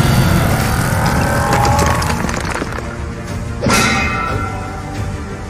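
Cartoon soundtrack music with a heavy low rumble, and a sudden crash sound effect a little over three and a half seconds in.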